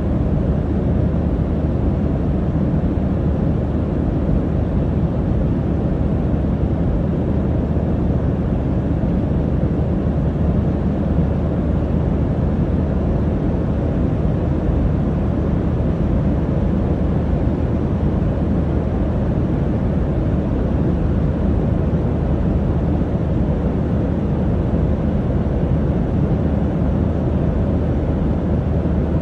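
Steady drone of an airliner cabin in flight: engine and airflow noise with a low hum underneath, even and unchanging throughout.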